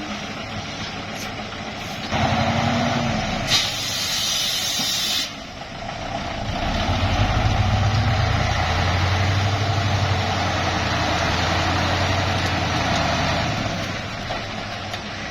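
Heavy truck's diesel engine running, with a sharp hiss of released air lasting under two seconds, about three and a half seconds in. From about seven seconds the engine runs louder and steadier, then eases near the end.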